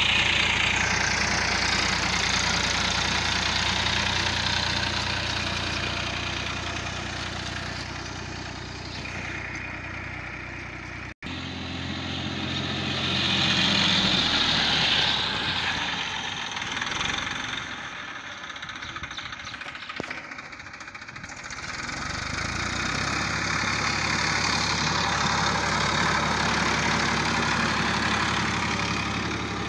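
Massey Ferguson 241 DI tractor's three-cylinder diesel engine running steadily as it pulls a sowing implement through the soil. The sound cuts out for an instant about eleven seconds in, and the engine grows louder around fourteen seconds as the tractor passes close.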